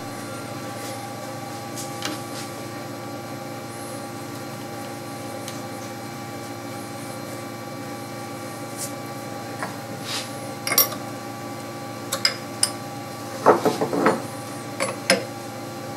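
Metal clicks and clinks of a spanner on a CNC router's collet nut as the cutter is fitted and tightened in the spindle. Several short clinks come from about ten seconds in over a steady background hum.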